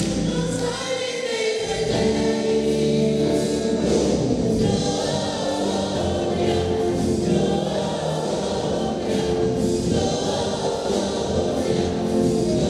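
Gospel choir singing in harmony, with long held notes.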